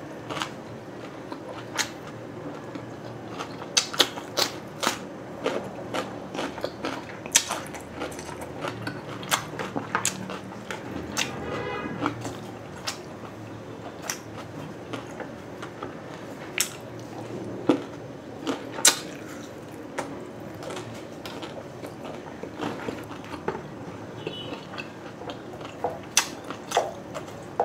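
Close-miked chewing and biting of grilled street-food skewers, with wet mouth smacks and many short sharp clicks.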